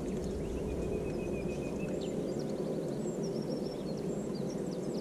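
Small birds singing from the reed bed, with a held whistle in the first couple of seconds and many quick chirps after it, over a steady low rush.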